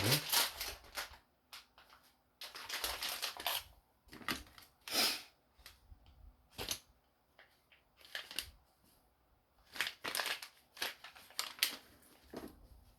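Hands working on small plastic and metal parts at close range: a run of irregular clicks, scrapes and rustles with short quiet gaps between them.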